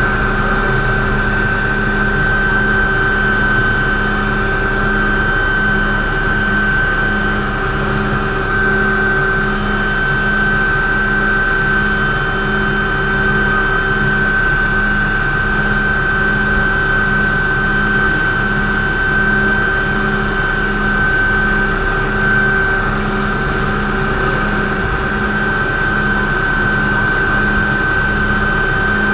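McDonnell Douglas MD 500C (Hughes 369HS) helicopter heard from inside its cockpit in low flight: the turbine's steady high whine over an evenly pulsing low drone from the main rotor, loud and unchanging.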